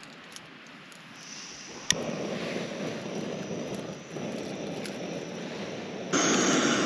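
Camping gas stove being lit for a brew: a hiss starts, a sharp click comes just before two seconds in, and then the burner runs with a steady rushing noise. A louder rush of noise comes in over the last second or so.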